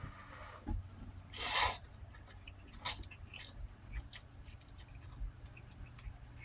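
Close-up wet chewing and mouth clicks from a person eating ramen and chicken, with one loud, hissing burst about a second and a half in lasting about half a second, and a sharper click about a second later.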